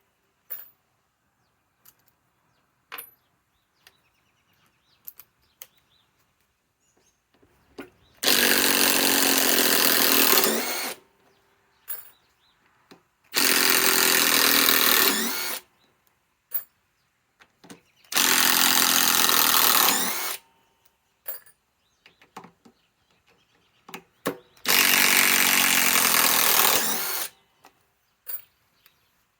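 Master Force brushless impact driver hammering lag screws out in four runs of about two to three seconds each, with small clicks and near silence between runs.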